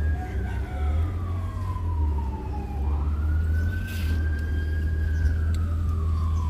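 A wailing siren: its pitch falls slowly, sweeps back up about three seconds in, then falls slowly again, over a steady low rumble.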